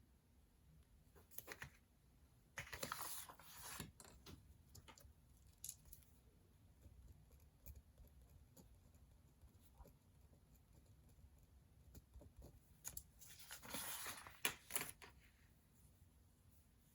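Desk study sounds of paper being worked on: two scratchy bursts, one about three seconds in and one near the end, with a few small clicks and taps between them, over a faint low room hum.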